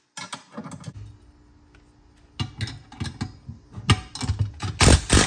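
Bolts being run into steel seat brackets on a wooden workbench with a cordless DeWalt driver while a wrench holds the nut: scattered metal clicks and knocks, then short bursts of the driver about four and five seconds in, the loudest near the end, as the bolt is brought tight.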